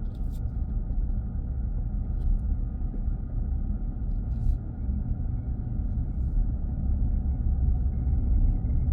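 Steady low road and engine rumble heard inside the cabin of a moving minivan, with a faint steady whine above it.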